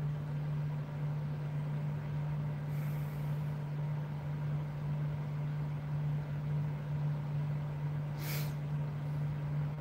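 A steady low hum holds at one pitch throughout, with a brief soft hiss about eight seconds in.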